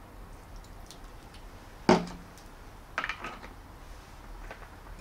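Ingredient containers being handled on a kitchen counter: one sharp knock about two seconds in, then a quick cluster of small clicks and knocks a second later.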